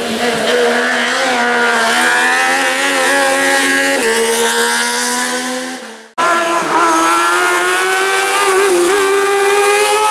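Engines of two small kart-cross racing buggies at high revs, one after the other. The first engine note holds high and fairly steady, then cuts off abruptly about six seconds in, and the second buggy's engine comes straight in at high revs.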